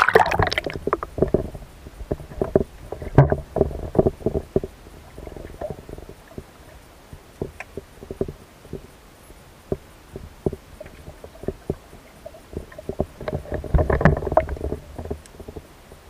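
Water noise heard through a submerged camera's housing: irregular muffled clicks, knocks and gurgles over a low rumble. They come thickest at the start and again about 13 to 15 seconds in, and are sparser in between.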